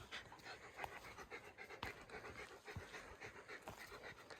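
Faint breathing of a hiker climbing a steep trail, with footsteps about once a second.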